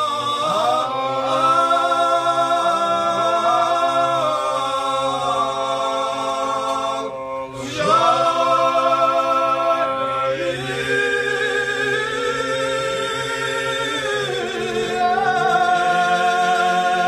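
Men's voices singing a Georgian folk song unaccompanied in several-part harmony, with a low note held steady beneath the upper parts. About seven seconds in, the voices break off together for a breath and come straight back in.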